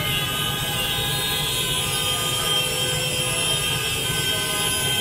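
Massed motor scooters and motorcycles running together, a steady engine din with many horns held and tooting over it.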